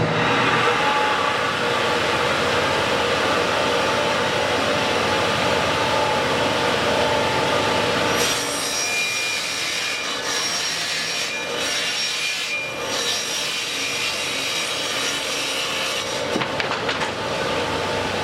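A power tool working wood, running steadily; its sound changes about eight seconds in.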